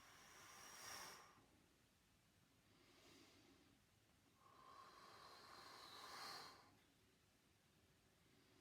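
A person's slow, deliberate breathing, faint: a breath ending about a second in, a weak one near three seconds, and a longer breath from about four and a half to six and a half seconds.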